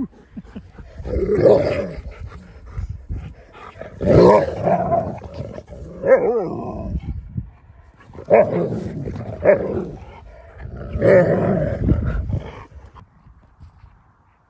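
Husky and malamute dogs growling and vocalizing as they play-fight, in about six loud bouts, each a second or two long, that bend up and down in pitch. The sound dies away near the end.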